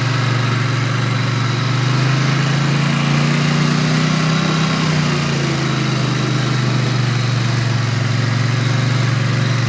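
ATV engine running at low speed, its pitch rising briefly in a gentle rev a couple of seconds in, then easing back down to a steady note.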